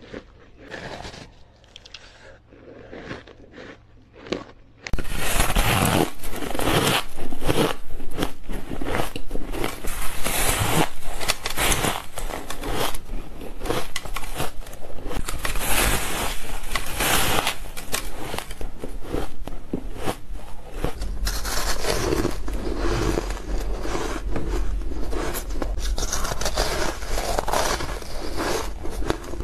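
Close-up biting and chewing of soft, powdery ice and freezer frost: crisp, crumbly crunching. It is fainter with separate crunches for the first few seconds, then turns suddenly louder and dense from about five seconds in.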